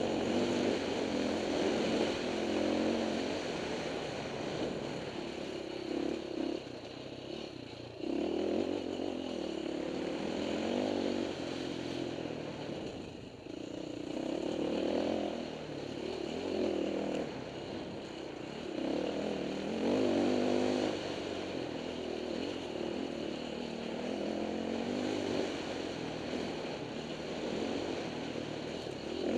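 Off-road dirt bike engine heard from the bike itself, revving up and dropping back again and again as the rider opens and closes the throttle, with a short let-off about thirteen seconds in.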